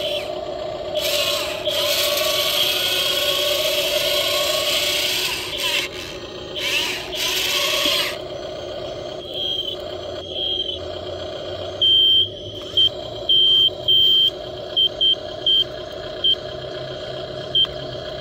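Small electric motors and gearboxes of radio-controlled model construction vehicles whining steadily, with rough crunching and scraping over gravel for the first eight seconds or so, then a run of short high beeps of uneven length in the second half.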